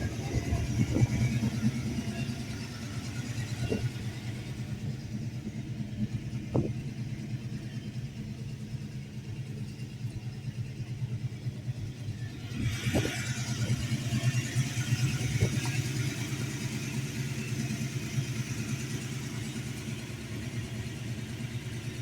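1968 Plymouth Barracuda's 340 small-block V8 idling steadily, with a few short knocks and a brighter hiss coming in about halfway through.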